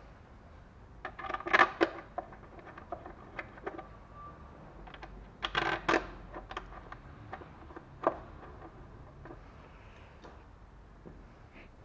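Small metal hand tools clinking and clicking as a wrench and socket bits are handled, in two busy clusters about a second and a half in and around six seconds, then one sharp clink at about eight seconds.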